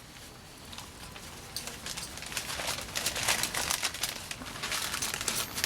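Irregular crinkling and rustling that starts faint and grows busier about a second and a half in.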